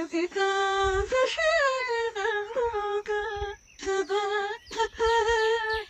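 A voice humming a slow tune of long, held notes, with two short breaks between phrases.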